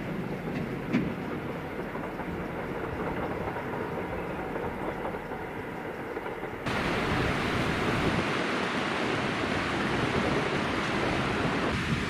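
KiHa E130 diesel train running along the line, a steady rumble and clatter over the rails. About two-thirds of the way through it gives way abruptly to a louder, steady rushing noise.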